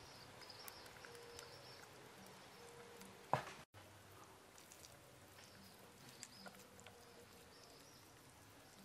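Faint wet squishing and small clicks of hands rubbing spice paste into raw frog meat, with one sharper knock about a third of the way in. Faint high chirping sits behind it.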